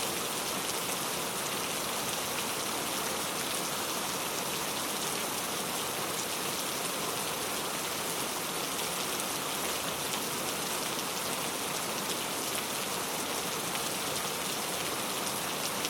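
Steady rain falling, a dense even hiss of drops with fine pattering, without thunder.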